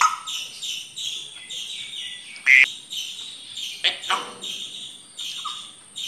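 African grey parrot giving two loud, sharp calls, one about two and a half seconds in and another about four seconds in, over a steady run of quick high chirps at about three a second.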